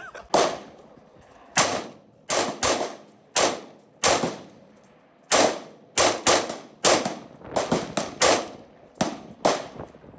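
A string of gunshots on a shooting range: about fifteen sharp reports, irregularly spaced, several coming in quick pairs and clusters, each trailing off in a short echo.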